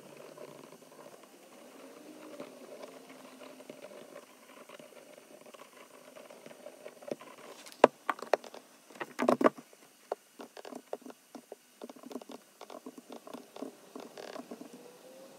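Pen scratching on notebook paper. About eight seconds in comes a sharp knock, then a louder clatter as the notebook is closed and put down, followed by rapid clicking of typing on a computer keyboard.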